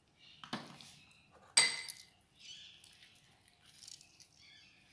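Two sharp clinks of a steel spoon against a glass mixing bowl, the second louder and briefly ringing, then faint soft sounds as a lemon half is squeezed over the spoon.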